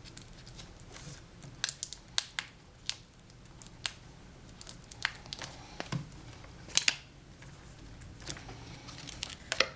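Hands working on a laptop screen assembly: scattered sharp plastic clicks and crinkling, a dozen or so separate ticks, with a cluster of louder ones near the middle and again near the end.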